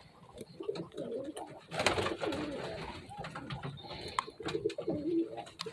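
Pigeons cooing, low and wavering, with scattered small clicks and rustles of fingers working a plastic leg band over the nest shavings.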